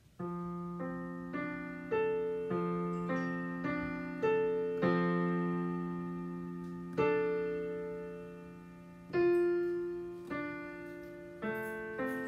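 Piano playing a slow beginner piece built on open fifths, F–C low in the left hand and D–A in the right. Single notes are struck about once or twice a second and ring on into each other under the sustain pedal.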